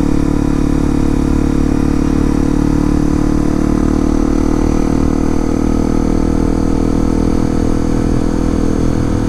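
Honda CRF250L dual-sport motorcycle's single-cylinder engine running steadily under way, at an even engine speed with no revving.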